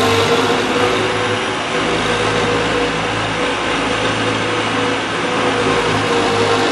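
John Deere skid steer loader's diesel engine running steadily as the machine drives about.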